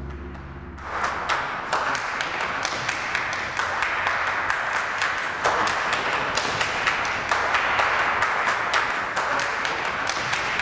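A low steady hum, then about a second in a dense clatter of many irregular sharp clicks over a hiss, much like applause.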